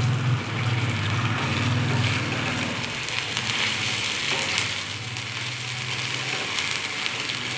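Chicken in gravy sizzling and bubbling in a stainless steel kadai over a raised gas flame as the gravy reduces, stirred now and then with a spatula, with a steady low hum underneath.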